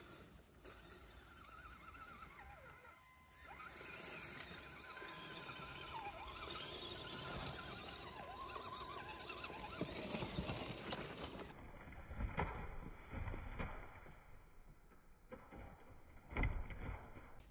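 A 6x6 scale RC rock crawler's electric motor and gear drive whine as it crawls over dirt and stones, the pitch wandering with the throttle. In the last third the sound turns duller, with a few sharp knocks as the tyres and chassis bump over rocks, the loudest near the end.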